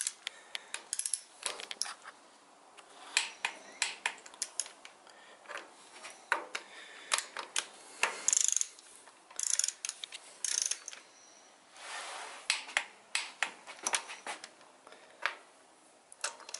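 Ratcheting torque wrench clicking in short runs as a socket on an extension turns bolts down, with scattered sharp metal clicks and clacks of the socket and wrench.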